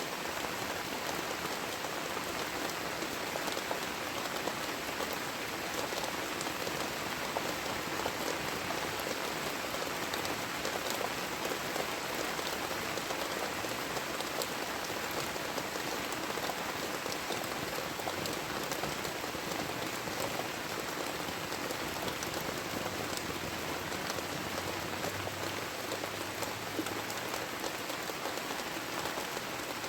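Heavy tropical rain falling steadily, with the patter of individual drops striking close by.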